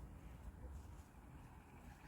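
Near silence with a faint, uneven low rumble of wind on the microphone.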